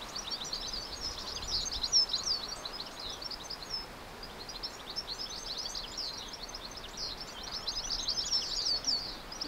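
Small birds twittering in quick, high chirps over faint steady outdoor background noise, with a brief lull about four seconds in.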